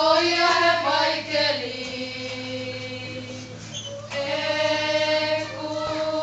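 A group of voices singing slow, long held notes in a hymn-like phrase; the singing softens about two seconds in and swells again a little after four seconds.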